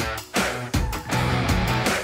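Intro theme music with a steady beat of strong hits about twice a second.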